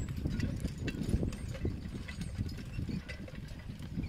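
A team of two draft horses walking in harness, pulling a plow through tilled soil: an uneven run of dull hoof falls with scattered light clinks.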